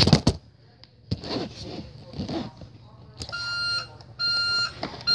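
Toy garbage truck's electronic beeper sounding three times, each beep about half a second long and a little under a second apart, like a truck's warning beeps. A sharp knock comes at the very start.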